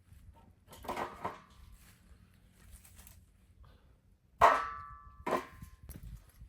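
Two sharp metallic clanks about a second apart, each ringing briefly, after a softer clatter about a second in.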